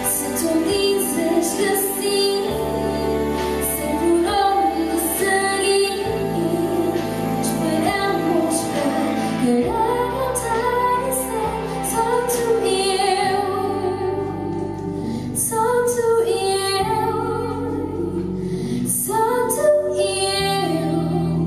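A woman singing a song in Portuguese into a microphone, amplified through a PA, over an instrumental accompaniment of held bass notes and light percussion.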